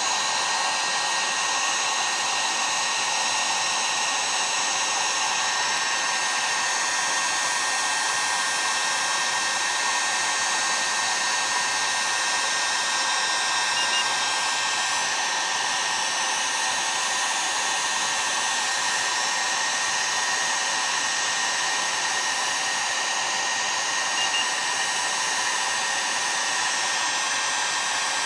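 Heat gun running steadily, blowing hot air onto the aluminium crankcase around the bearing bore to expand it so the tight crankshaft bearing can be driven in.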